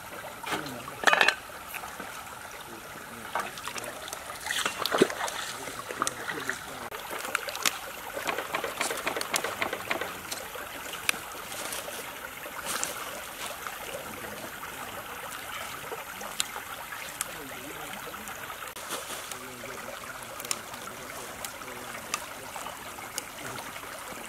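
Shallow stream trickling steadily, with many short sharp snaps as crisp water spinach stems are broken by hand. The snaps come in bursts, thickest in the first half, and sparse later.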